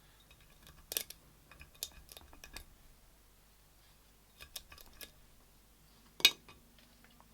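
Sharp metallic clinks and knocks of metal parts being handled, in small scattered clusters, with the loudest single knock near the end.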